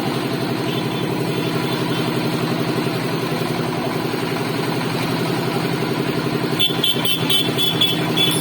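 An engine running steadily with a rapid pulsing beat. A series of high clicks joins it about six and a half seconds in.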